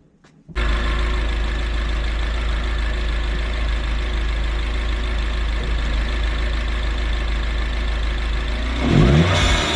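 Mini Cooper S R56's 1.6-litre turbocharged four-cylinder engine idling steadily, then revved briefly near the end, its pitch rising and falling.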